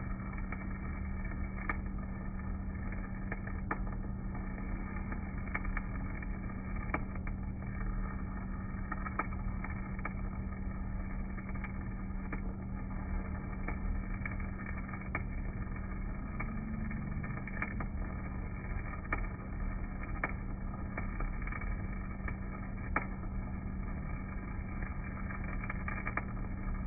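Stick (arc) welding with an EZ50 basic electrode: the arc crackles and pops irregularly over a steady low hum from an Elin rotary DC welding generator. The whole sound is dull, with no bright treble.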